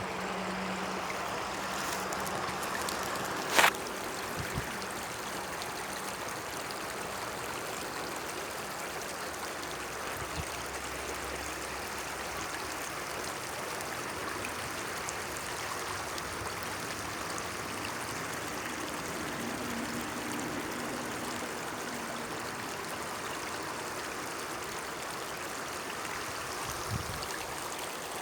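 Small stream trickling steadily. A single sharp click sounds about three and a half seconds in, and a fainter tap comes near the end.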